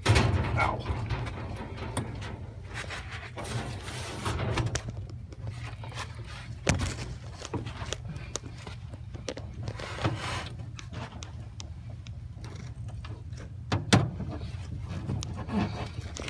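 Scattered clicks and knocks of needle-nose pliers and hands working at the brake pedal linkage pin under the dash, with a sharper knock about fourteen seconds in, over a steady low rumble.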